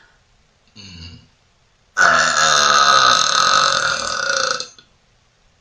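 A woman's long, loud burp starting about two seconds in and lasting nearly three seconds, after a brief low sound about a second in.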